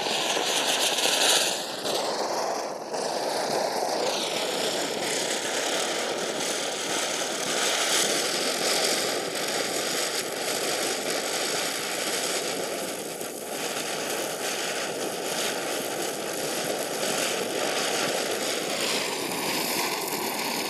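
Ground spinner firecracker (chakri) spinning and spraying sparks: a loud, steady hiss with a thin whistle running through it. The whistle drops slightly in pitch about two seconds in and rises again near the end.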